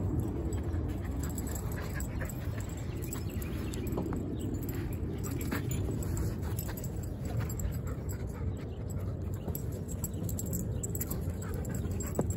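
A dog panting and padding over dry dirt as it runs with a tennis ball, in short scattered breaths and footfalls over a steady low rumble.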